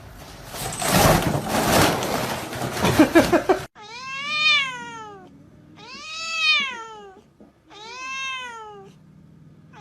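A domestic cat meowing three times, long drawn-out meows that each rise and then fall in pitch. Before them, for the first three seconds or so, there is a loud rough noisy sound that cuts off abruptly.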